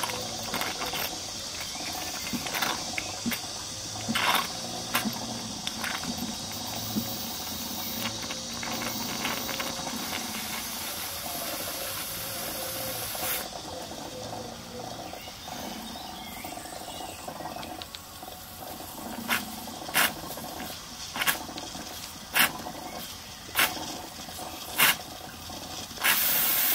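Cotswold Heritage Perseus single-cylinder model steam engine turned over slowly by hand on a little steam, to warm the cylinder. It hisses and splutters wetly as condensate is blown through, with many small clicks. In the second half, sharp exhaust puffs come about once a second, and near the end a louder steady hiss of steam starts.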